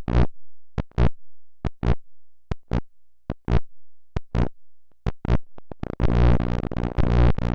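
Output of a homemade ECG amplifier circuit played back as audio: short bursts of 60 Hz mains hum in a steady pulse, a little under one a second. Each burst comes where a heartbeat peak pushed the hum above ground. About six seconds in, the pulses give way to a continuous buzzing 60 Hz hum.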